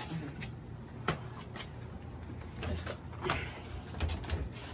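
A refrigerator's freezer drawer being slid open and groceries handled in and around it, giving a few scattered knocks and clicks over a low steady hum.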